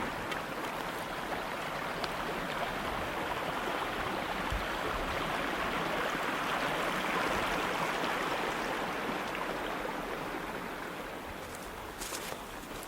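Runoff stream flowing, a steady rushing of water that grows louder toward the middle and then fades; the water running this far down is a sign of heavy spring runoff. A few sharp clicks near the end.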